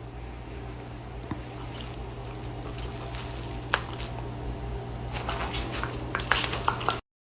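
Indoor room sound: a steady low hum with scattered light clicks and rustles, which grow busier near the end before the sound cuts off abruptly.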